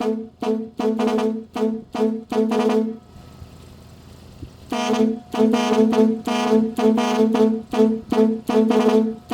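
Chrome-plated Thai-style truck air horns blown in a quick pulsing rhythm of short blasts by a Cicada touch-control horn-pattern controller. They break off about three seconds in for a pause of nearly two seconds, then start again with a longer blast and more pulses.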